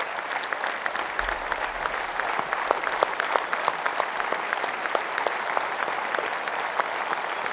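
Large crowd in an arena applauding steadily, thousands of hands clapping at once.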